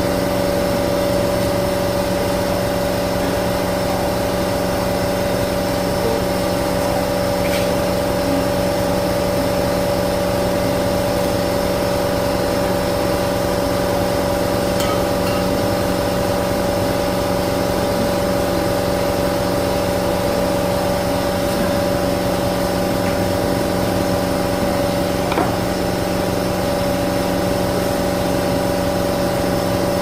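A machine running steadily with a constant, unchanging hum, with a few faint taps over it.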